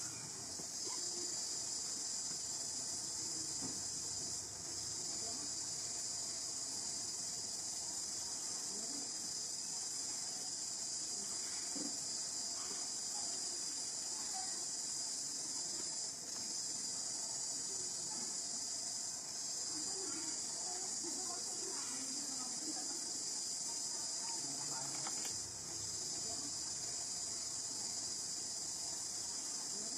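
A steady, high-pitched insect chorus, dipping briefly a few times, with faint scattered lower sounds beneath.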